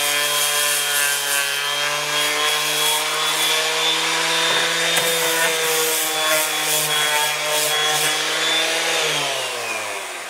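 Electric random orbit sander with a 120-grit disc sanding a wooden hatchet handle: a steady motor hum with the scratch of abrasive on wood. About nine seconds in it is switched off and winds down, its pitch falling away.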